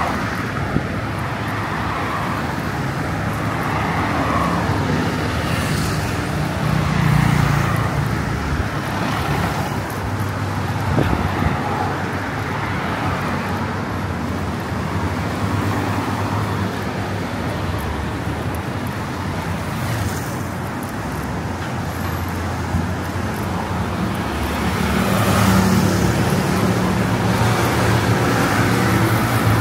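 Steady road traffic: engines running and tyres on the road, swelling louder about seven seconds in and again over the last few seconds as vehicles pass close.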